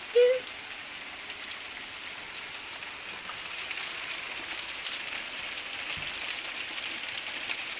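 Heavy rain falling and splashing steadily on the street, a constant hiss. A brief loud pitched sound breaks in just after the start.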